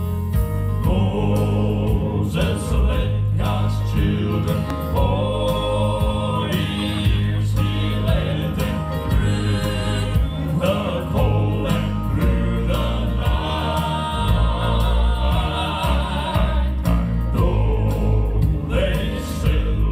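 Four-man gospel quartet singing together into microphones, amplified over a PA, with electronic keyboard accompaniment and a strong, steady bass underneath.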